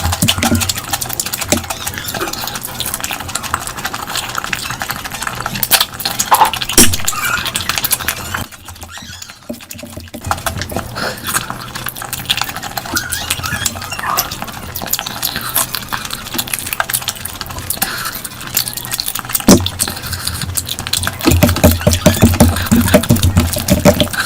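Close-miked eating of curry and rice: wet chewing, smacking and squelching made up of dense small clicks, briefly quieter about nine seconds in.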